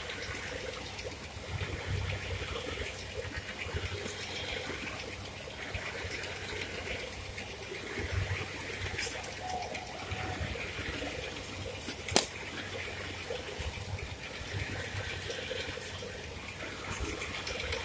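Steady airy hiss with irregular low wind rumbles on the microphone, broken about twelve seconds in by a single sharp pop of a balloon bursting.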